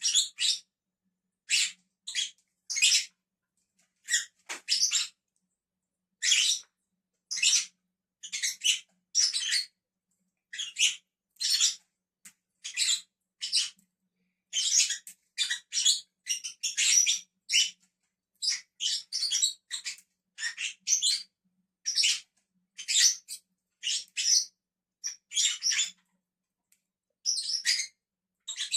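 Pet lovebirds chirping: short, high-pitched calls, one or two a second, sometimes in quick clusters, with brief silent gaps between.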